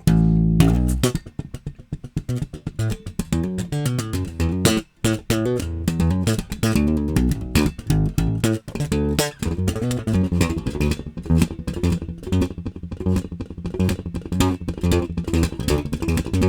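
Electric bass guitar played solo: a busy run of sharp, percussive slapped and popped notes mixed with soft ghost notes, with a brief break about five seconds in.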